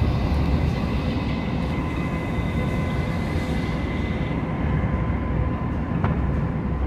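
Light-rail train running at speed, heard from inside the passenger car: a steady low rumble with a thin, steady whine above it, and a single click about six seconds in.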